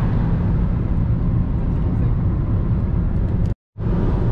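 Steady road and engine noise heard inside a car cabin at highway speed. It cuts out completely for a split second about three and a half seconds in, then resumes.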